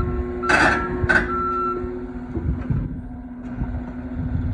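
Skid loader's engine running steadily while its reversing alarm beeps at an even pace, the beeping stopping about two seconds in. Two sharp knocks come in quick succession about half a second and a second in.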